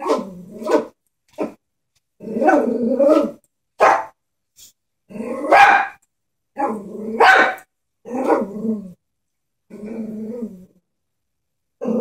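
Chihuahua growling and barking in a string of short outbursts, about one a second, at a plush toy horse it is scared of.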